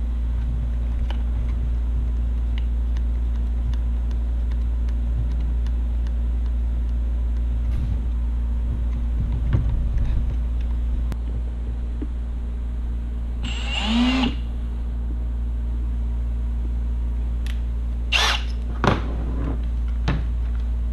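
Light clicks and taps of banana jacks being pushed and fitted into a plastic ammo-box lid by hand, over a steady low hum. A brief whirring burst comes about two-thirds of the way through, and a few short sharp noises come near the end.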